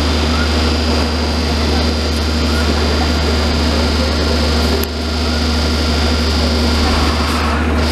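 Steady mechanical drone with a strong low hum from the hydraulic pump driving a post-tensioning stressing jack, dipping briefly about five seconds in.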